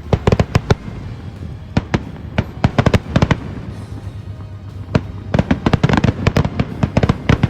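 Aerial fireworks going off in rapid volleys of sharp bangs and crackles. There are three clusters of many reports, and the densest comes in the last two and a half seconds.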